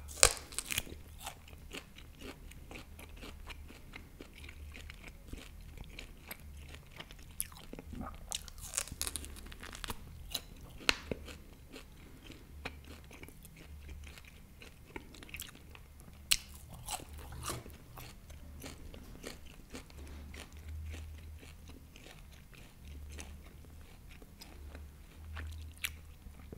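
Close-miked biting and chewing of tough fried beef steak, a string of wet mouth clicks and crackles with a sharp bite just after the start. The meat is so tough that the eater calls it rubber.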